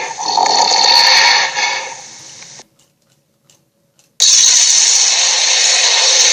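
Raspy, snoring-like creature growl sound effects for a tiger-gorilla monster. One growl fades out over about two and a half seconds, then after a second and a half of silence a second growl starts abruptly.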